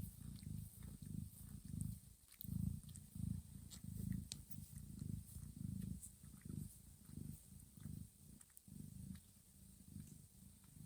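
A cat purring, low and steady, swelling and fading about twice a second, with faint soft ticks above it.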